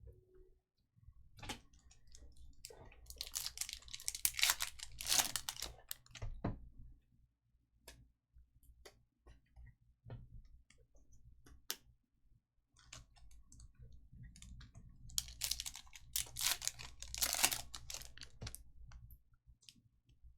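Foil trading-card pack wrappers crinkling and tearing open in two spells of crackling, with scattered light clicks of cards being handled between them.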